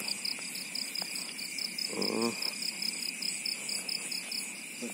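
Night chorus of crickets in a rice paddy: a rhythmic high trill pulsing about five times a second over steady higher buzzing. A brief low vocal sound comes about two seconds in.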